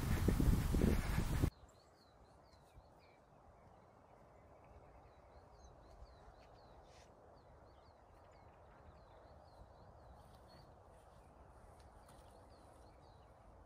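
A loud rushing noise for the first second and a half, cut off abruptly. Then a quiet outdoor background with many faint, short, high-pitched animal chirps repeating throughout.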